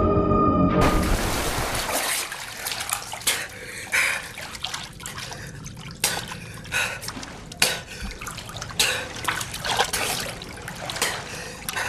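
Water splashing and trickling, with irregular sharp splashes. It starts abruptly about a second in, as organ music cuts off.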